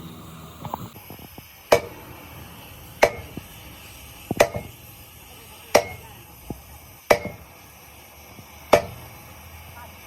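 Hammer blows on metal, six steady strikes about a second and a half apart, each with a short ring.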